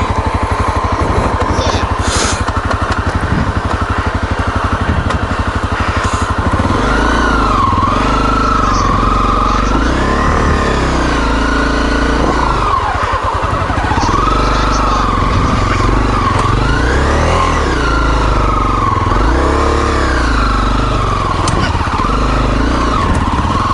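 Single-cylinder four-stroke dual-sport motorcycle engine running at low revs, then from about seven seconds in revving up and falling back over and over as the bike is worked through rocky ground.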